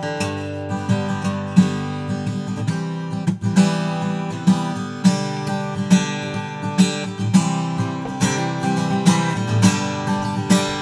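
Takamine PTU200 SP-K dreadnought acoustic guitar played on its own, with chords strummed in a steady rhythm of roughly one stroke every half second to second as the chords change. The player says the sound has a strong, punchy midrange that sets it apart from spruce- or cedar-topped guitars.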